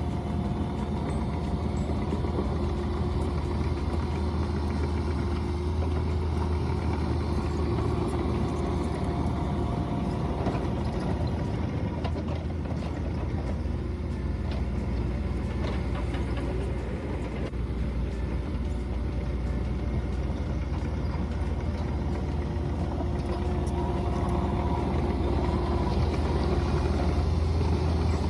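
Mini excavator engine running steadily, with occasional light clicks; it gets a little louder near the end.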